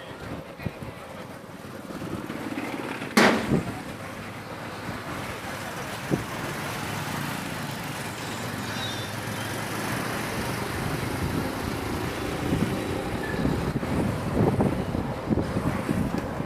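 A road vehicle moving, with steady road noise and wind buffeting the microphone, building slowly. One loud sharp knock comes about three seconds in.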